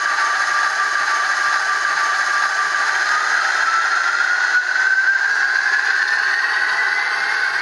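Soundtraxx sound decoder in a Bachmann HO scale ALCO S4 model playing the ALCO 539T diesel switcher at high throttle through the model's small speaker. The turbocharger whine holds steady, then rises in pitch from about three seconds in as it spools up.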